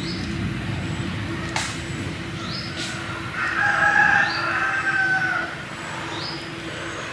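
A rooster crows once near the middle, a pitched call of about two seconds, over a steady low hum; a short high rising chirp recurs every second or two.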